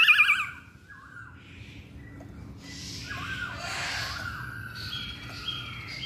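Black-throated laughingthrush (poksay Hongkong) singing. A loud, wavering whistle falling in pitch ends about half a second in, followed by quieter short whistled notes and soft sliding calls.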